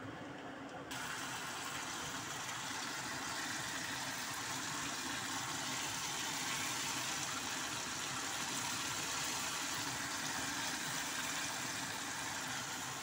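Hot oil sizzling steadily in a frying pan around cheese-stuffed chili spring rolls (dynamite lumpia) as they shallow-fry to golden brown. The sizzle starts suddenly about a second in.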